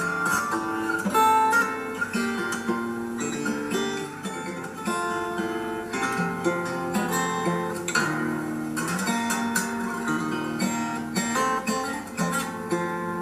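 Solo fingerstyle acoustic guitar playing a gamelan-like melody in plucked single notes over a sustained bass line played with the thumb.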